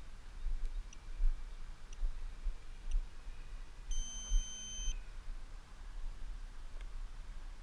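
A single electronic beep about four seconds in, lasting about a second, over a low rumble and faint ticks about once a second.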